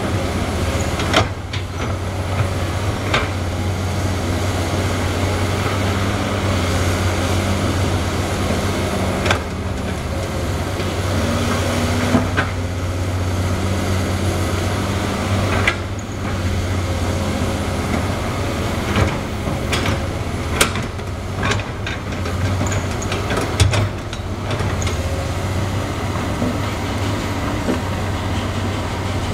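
Komatsu PC200 hydraulic excavator's diesel engine running steadily while it digs dirt, with a sharp knock every few seconds.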